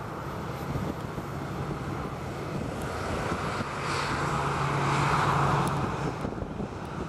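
Boeing 737 jet engines running at taxi power as the airliner rolls past, a steady noise over a low hum that swells to its loudest about five seconds in and then eases.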